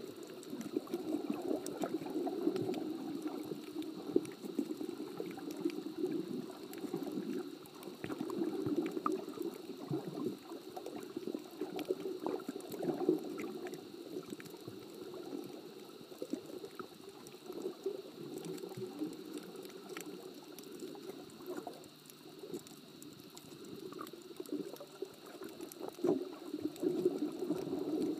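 Muffled underwater water noise heard through the camera, a low rush that swells and fades, with scattered small clicks throughout.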